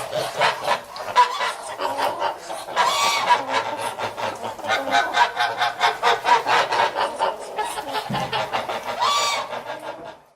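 A flock of geese honking and gabbling, many calls overlapping, with a louder honk about three seconds in and another near the end. The sound stops abruptly at the very end.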